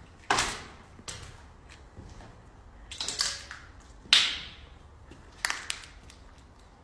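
Footsteps scuffing and crunching on a gritty, debris-strewn floor: about five short, uneven scrapes, the loudest just after four seconds in.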